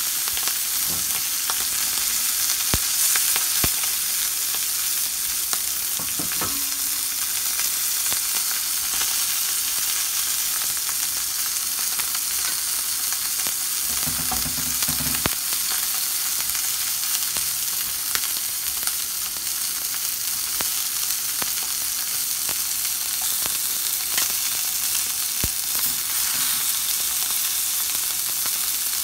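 Filet mignon steaks and serrano chilies searing in hot oil in a nonstick frying pan: a steady sizzle with many small pops and crackles. About halfway through comes a brief low thump as tongs move a steak.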